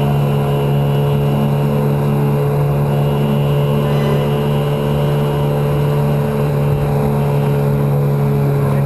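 Yamaha 9.9 hp two-stroke outboard kicker motor running steadily at wide-open throttle, a loud, even drone that pushes the loaded boat.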